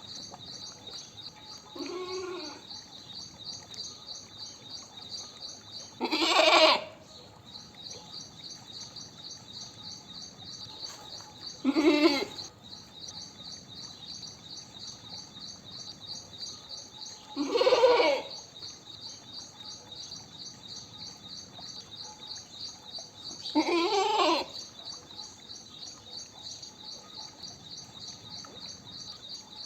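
Goat bleating: one faint call early, then four loud bleats spaced about six seconds apart, each about a second long. A steady high chirping continues in the background.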